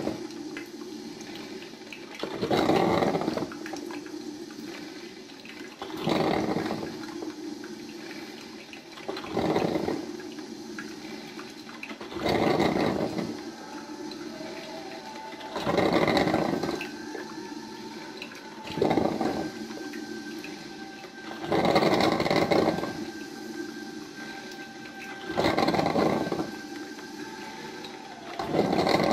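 DeLonghi drip filter coffee maker brewing: its heater gurgles and sputters in bursts about every three seconds as boiling water is pushed up to the filter, with a low steady hiss between the bursts.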